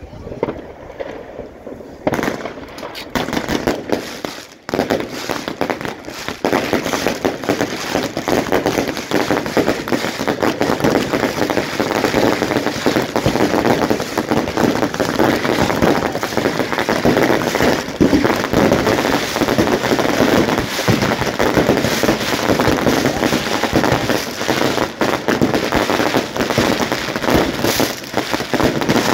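German consumer firework cakes (batteries) firing, starting about two seconds in. A dense, unbroken run of rapid shots and crackles fills in after about six seconds.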